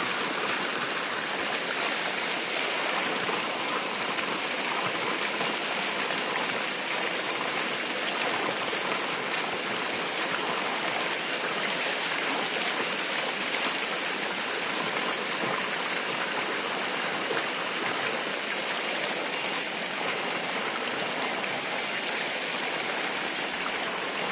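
Spring water gushing steadily from a pipe spout and cascading over rocks into a shallow pool, an even rush of splashing water.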